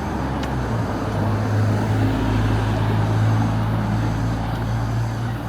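A motor vehicle running close by in street traffic, its low engine hum growing louder a couple of seconds in and then easing off, over a general traffic hiss.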